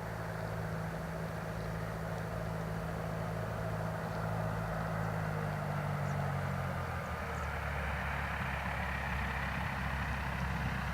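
Cessna Skyhawk's single piston engine and propeller running steadily, its pitch shifting slightly about seven seconds in.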